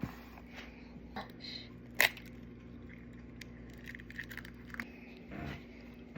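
Scattered light clicks and taps of kitchen utensils and bowl being handled while preparing muffin batter, with one sharp click about two seconds in, over a steady low hum.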